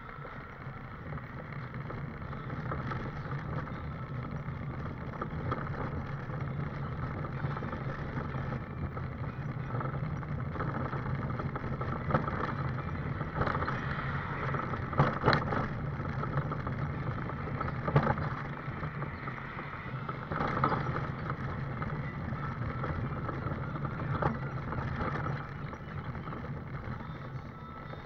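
A scooter running along a road, its steady hum and rattle picked up by a camera mounted on it, with sharp knocks from bumps scattered through, the loudest about halfway in.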